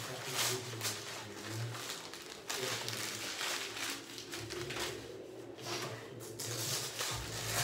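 Irregular rustling and crinkling of gift wrap, tissue and paper gift bags as presents are handled and moved.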